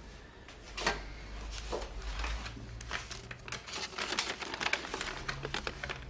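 A dense, irregular run of soft clicks and rustles, starting about a second in, over a low steady hum.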